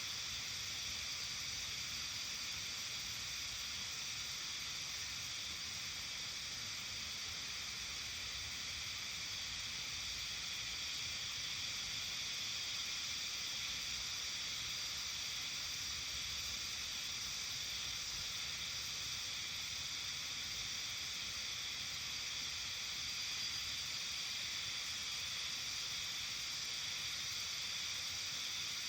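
Steady early-summer evening ambience in a mountain village: an even, high-pitched, hiss-like chorus that holds level throughout, with no single event standing out.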